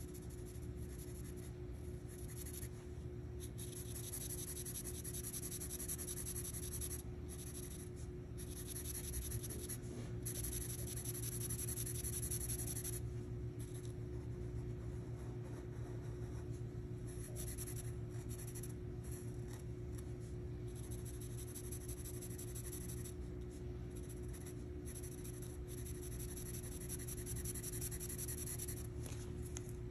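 Felt-tip marker scratching across paper in repeated coloring strokes, in stretches broken by short pauses, over a steady low hum.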